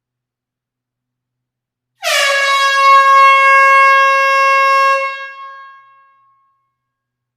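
Air horn sounding one long, steady blast of a single note for about three seconds, starting about two seconds in, then dying away in the echo of an enclosed hall.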